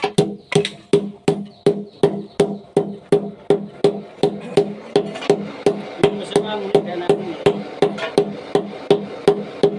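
Steady hammer blows, about three a second, each with a short ringing note.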